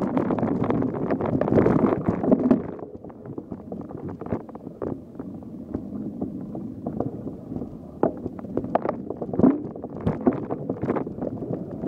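Mountain bike rattling over a bumpy trail, with wind on the camera microphone. The rushing noise drops about three seconds in, leaving scattered knocks and rattles from the bike.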